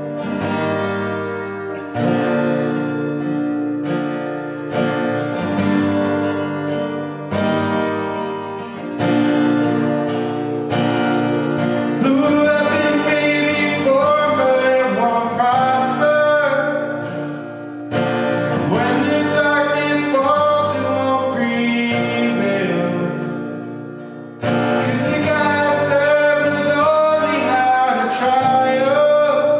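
Worship band music: a strummed acoustic guitar with a steady beat, with singing joining in from about twelve seconds in.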